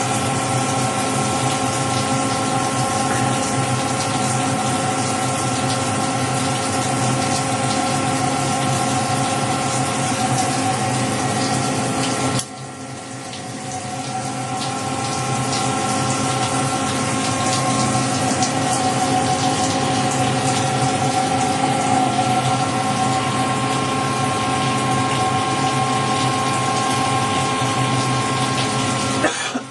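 Emco Turn 220 CNC lathe running: a steady machine hum with several held tones over a rushing, watery noise. About twelve seconds in the sound drops suddenly, then builds back up over a few seconds.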